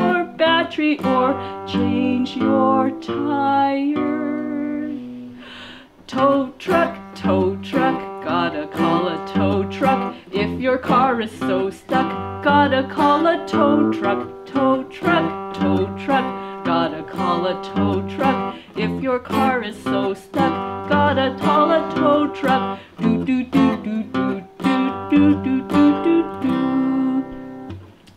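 A woman singing while strumming chords on an acoustic guitar.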